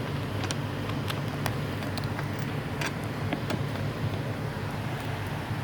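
Scattered light clicks and taps of screws and chair parts being handled during assembly, over a steady low hum.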